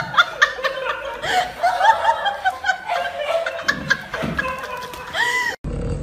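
A person laughing in quick, high-pitched giggles, a few to the second, ending in one longer rising-and-falling laugh; about five and a half seconds in it cuts off suddenly and a steady low hum takes over.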